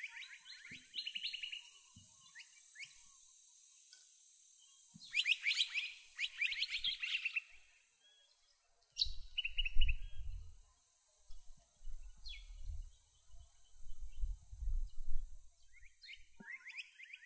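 Wild birds chirping and calling in short bursts, a flurry of rapid chirps about five seconds in. From about nine seconds in, a low gusty rumble of wind on the microphone comes and goes and is louder than the birds.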